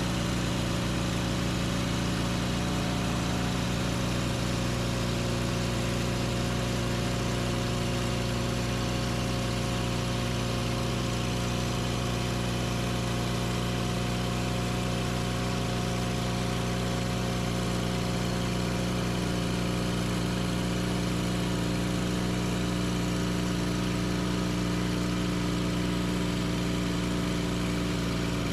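Sawmill engine running steadily at a constant speed. A slightly higher tone joins about two-thirds of the way in.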